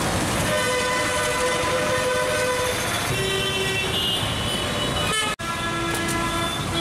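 Busy road traffic with vehicle horns honking, several long held horn notes one after another at different pitches over the din of engines. The sound breaks off for an instant about five seconds in.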